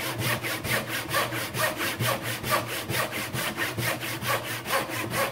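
Fine-toothed hand saw, guided by a dovetail jig, cutting a dovetail tail into a wooden board: quick, even back-and-forth strokes, about four a second.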